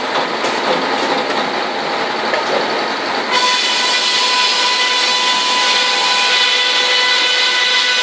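Sawmill breast-bench circular saw running and ripping a length of timber into a board. About three seconds in, the sound brightens into a steady whine as the blade cuts through the wood.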